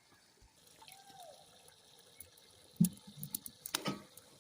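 Water splashing and dribbling in a few irregular bursts, starting about three seconds in.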